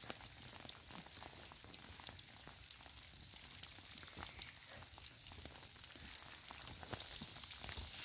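Light rain pattering: a faint steady hiss with many small scattered ticks.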